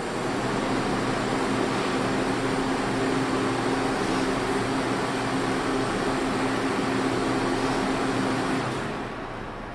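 Steady rushing noise with a faint low hum, like a ventilation or equipment fan running, which fades down near the end.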